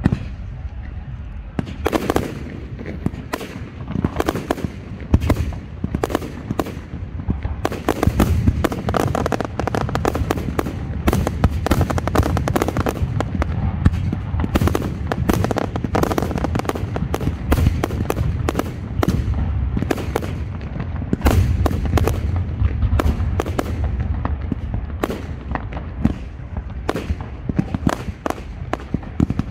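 Professional fireworks display: a dense, continuous barrage of launches and aerial shell bursts, with many sharp bangs following one another, growing thicker a few seconds in.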